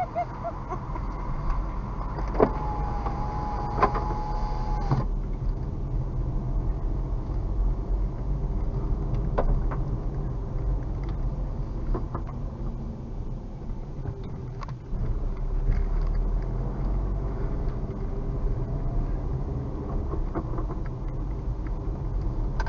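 A car driving, heard from inside the cabin: a steady low engine and road rumble, with a few short clicks or knocks scattered through.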